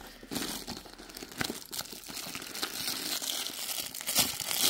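Plastic bags and clear cellophane wrapping crinkling and rustling as they are handled, with many small crackles and clicks.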